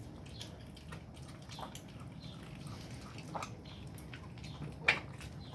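Blue nose pit bull puppies chewing and tearing at steak: scattered wet smacks and clicks, with one sharper snap near the end.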